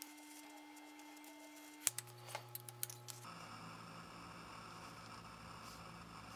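Quiet room tone with a handful of small, light clicks and taps about two seconds in, from small craft tools handled on a cutting mat.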